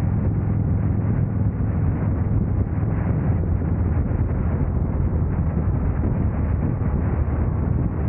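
Motorcycle engine running steadily at highway cruising speed, a constant low hum under the rush of wind over the microphone.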